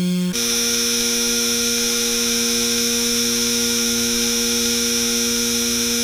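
Power-line hum sound effect: a steady electrical buzz of several fixed tones under a bright hiss. About a third of a second in, the hum shifts abruptly to a different pitch and then holds steady.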